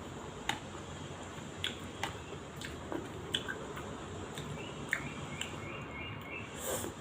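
Chewing and eating sounds: scattered wet mouth clicks and smacks about every half second while a mouthful of food is eaten.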